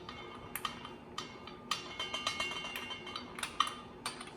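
Irregular sharp metallic clicks and clinks from a hand tool on bolts, as the flywheel bolts are drawn down by hand before the first torquing pass. A short ringing clink is heard around the middle.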